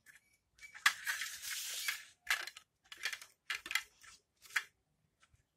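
Plastic parts of a solar light being handled and fitted together by hand. There is a scraping rustle about a second in, then a string of light clicks and taps.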